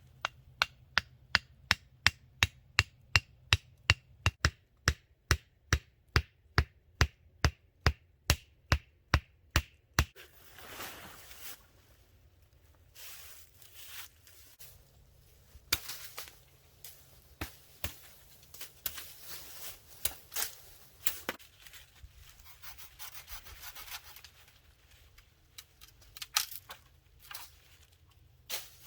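Rapid, evenly spaced knocks, about three a second, that stop about ten seconds in. They give way to irregular rustling with a few sharp cracks.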